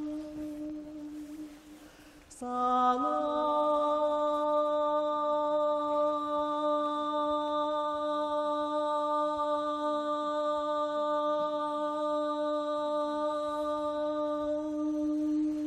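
A man's voice chanting long held tones. One note fades out, and after a short pause about two seconds in, a new note slides up a little and is held steady for more than ten seconds.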